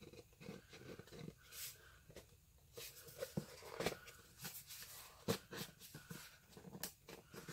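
Cardboard pen box and paper leaflet being handled: soft rustling with scattered light taps and clicks as the sleeve slides off and the box is set down on the desk.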